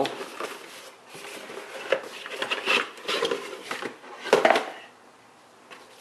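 Cardboard box being handled and opened and a plastic spill-free funnel kit lifted out: rustling cardboard and clattering plastic parts, with the loudest clatter about four and a half seconds in.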